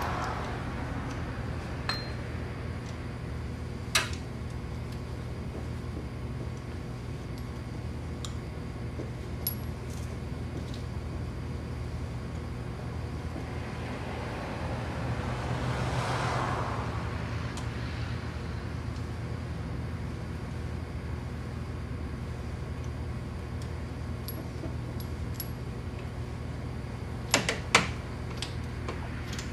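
Occasional metal clicks and clinks from a socket wrench tightening the AC hose fittings on a compressor, over a steady low hum; a quick cluster of sharp clicks near the end.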